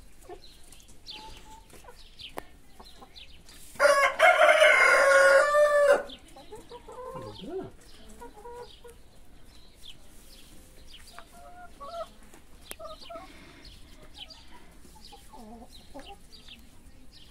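A flock of brown laying hens clucking and giving short calls, with one loud, drawn-out chicken call lasting about two seconds, about four seconds in.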